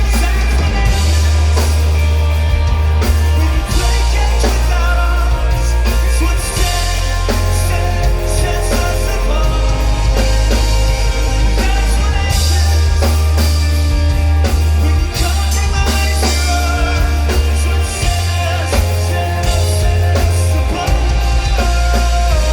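Live rock band playing loud and steady, with electric guitars, bass and a drum kit, and a singer.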